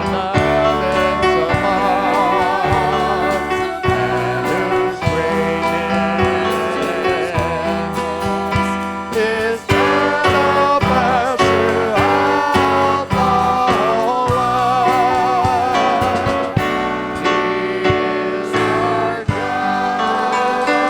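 Worship song: a singer with vibrato over a band of guitar, bass and percussion, with a steady beat.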